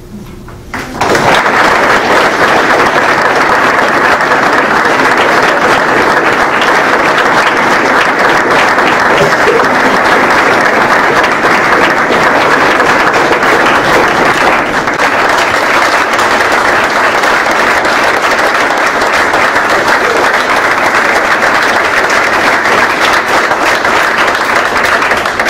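Audience applauding steadily for over twenty seconds, starting about a second in and stopping near the end.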